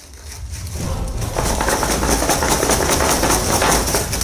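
Cardboard snack-cake box being torn open and emptied, foil-wrapped snack cakes crinkling and spilling out in a dense, continuous rustle that starts about a second in.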